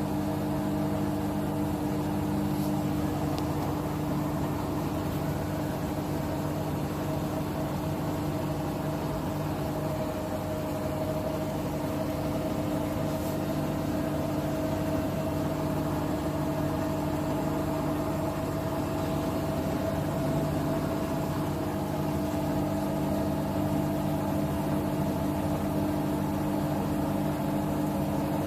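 Bosch Serie 6 WAT28490NL washing machine spinning a load at high speed on its 1400 rpm spin-only programme: a steady motor whine over a drum hum, the whine edging slightly higher in pitch partway through.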